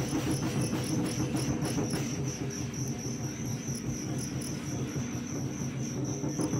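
Fighting cricket chirping steadily in a high-pitched trill, over a low steady hum.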